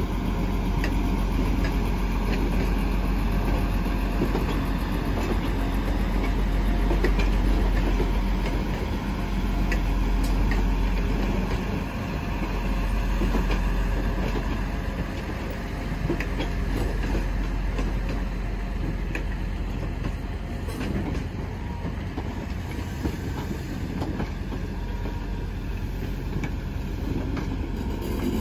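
Transport for Wales diesel multiple units on the move: a steady low engine rumble with wheels clicking over rail joints, easing slightly about halfway through.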